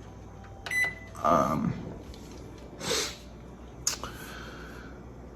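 Microwave control panel giving a short electronic beep with a click about a second in. Then two loud breaths or sniffs close by, and a sharp click near four seconds.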